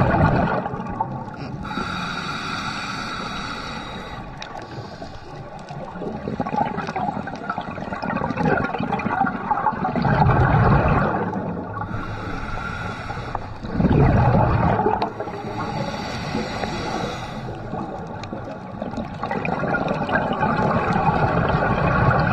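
Scuba diver breathing through a regulator underwater: two hissing inhalations with a whistling tone, alternating with loud bursts of gurgling exhaled bubbles.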